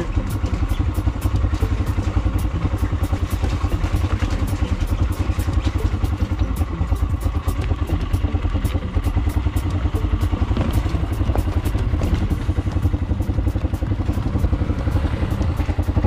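Small motorcycle engine running at low speed as the bike goes slowly down a rough, rocky, waterlogged dirt lane, with frequent knocks and rattles from the bumps.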